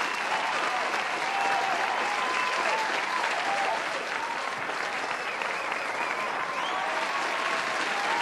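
Large audience applauding steadily, with a few voices calling out over it.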